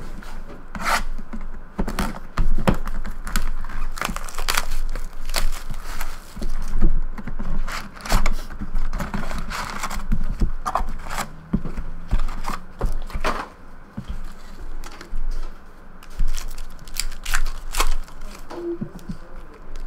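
A cardboard trading-card box handled and opened by hand, scraping and tearing, then foil-wrapped card packs crinkling and clicking as they are pulled out and stacked on a table. Irregular, with many short sharp clicks.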